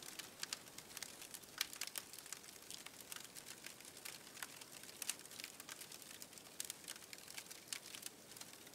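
Wood fire crackling faintly: a charred log burning on a portable steel grill, giving irregular small pops and snaps, a few a second.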